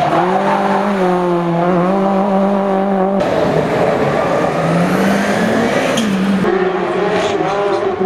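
Rally cars' engines running hard at high revs, one after another; about three seconds in the sound cuts abruptly to a different car, whose engine climbs in pitch, and it cuts again near six and a half seconds.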